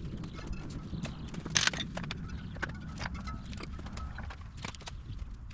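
A string of irregular clicks and knocks over a low rumble: hand tools and metal parts being handled while removing a motorcycle's rear wheel.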